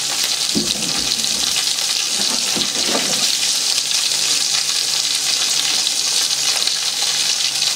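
Sausages and beef burgers sizzling steadily in hot oil in a frying pan, over a heat the cook considers too high.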